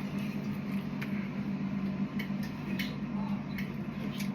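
A steady low hum with a few faint, light clicks scattered through it.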